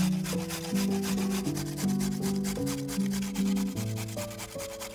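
A carrot being grated by hand on a stainless steel grater: quick, even rasping strokes, about five a second. Background music plays underneath.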